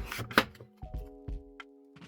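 Clicks and knocks of a plastic CD album case and its contents being handled and snapped back together, the sharpest knock about half a second in, over soft background music with held notes.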